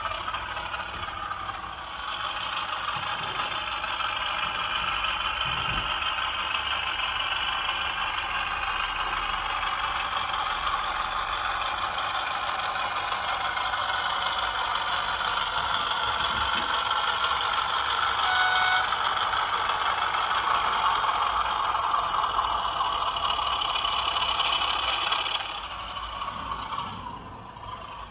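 Class 33 diesel locomotive sound from a model-railway sound decoder, played through the model's small speaker: the Sulzer eight-cylinder diesel engine running under power, its pitch slowly drifting. It drops back near the end.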